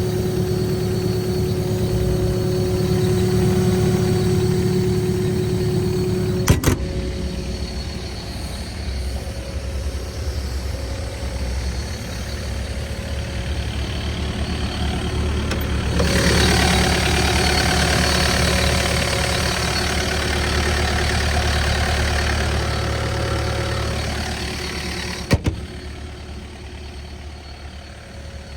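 Kubota KX080-4A2 excavator's diesel engine running steadily, with a sharp click about six seconds in and another near the end. It grows louder and brighter for several seconds past the middle, then drops back and fades toward the end.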